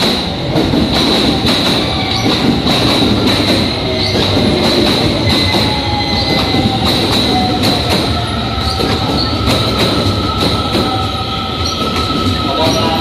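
JR West commuter electric train running into the station and slowing to a stop, its wheels clacking over rail joints under a steady high-pitched wheel squeal, with thin motor tones.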